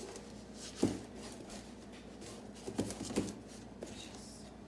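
A few light knocks and taps: one about a second in and two close together near three seconds in.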